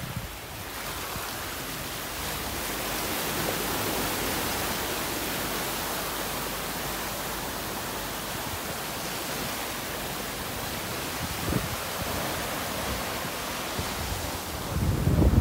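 Muddy floodwater of the Bono tidal bore rushing and churning over a sandy riverbank and into brush: a steady hiss of flowing water. A brief low rumble near the end.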